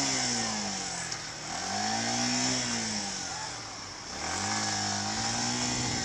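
Motorcycle engine riding in low gear, its pitch falling, rising and falling again as the throttle is opened and closed, then picking up about four seconds in and holding steady. A steady high hiss runs under it.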